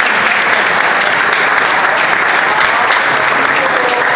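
Audience applauding steadily, with many people clapping together.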